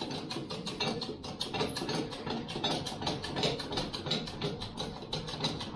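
Air-over-hydraulic foot pump of a VEVOR hydraulic strut coil spring compressor chattering rapidly, about seven strokes a second, as the ram rises to compress a coil spring.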